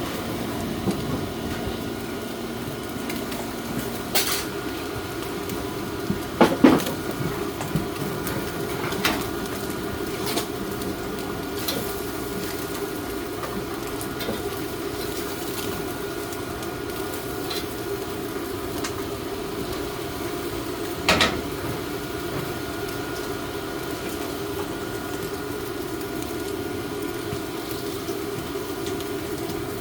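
Dishes and metal utensils clinking now and then over a steady hum, with the loudest clatters about six to seven seconds in and again about twenty-one seconds in.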